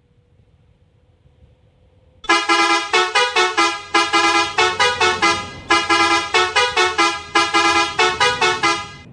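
Basuri 'telolet' multi-tone musical bus horn playing a tune of short, quick notes that change in pitch, starting about two seconds in.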